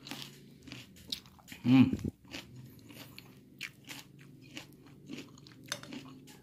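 Crunching and chewing of asinan Betawi with its crisp noodle crackers (kerupuk mie), a run of short crackly bites, with a short vocal sound about two seconds in.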